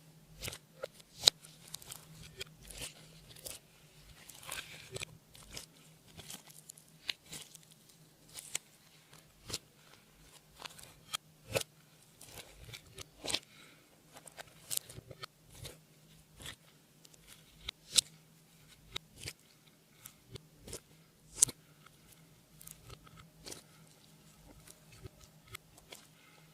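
Slime and makeup being worked by hand: irregular sharp sticky clicks, crackles and pops, one or two a second, with a few louder snaps.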